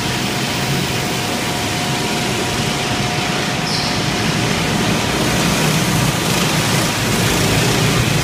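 Several go-karts running together around an indoor track, their engines making a steady drone. A brief high squeal comes about three and a half seconds in.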